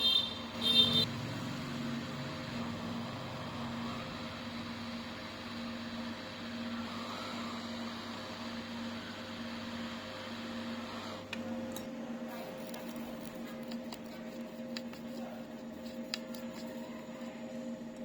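Electronics repair bench equipment humming steadily, with a short electronic beep about a second in. A lower part of the hum stops about twelve seconds in, and faint clicks and taps follow.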